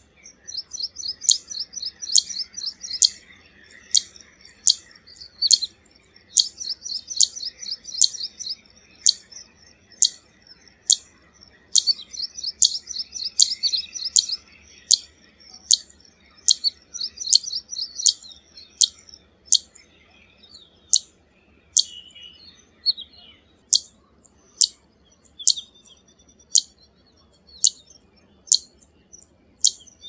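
Zitting cisticola singing: a sharp, very high "zit" note repeated about twice a second. Through roughly the first two-thirds, bursts of rapid high chattering fill the gaps between the notes.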